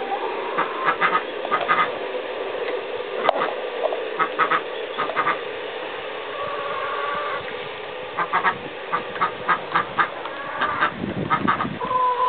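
Backyard hens feeding at a feeder, giving short calls in quick groups of two or three over a steady low murmur from the flock.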